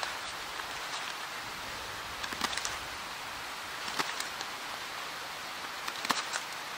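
Knife blade chopping into a small branch, three sharp cracks a second or two apart, over a steady background hiss.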